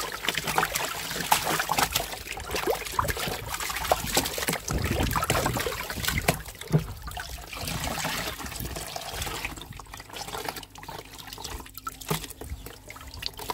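Water splashing and trickling as dirty filter floss is rinsed in a tub of pond water. The splashing is busiest in the first two-thirds and eases to a lighter trickle near the end.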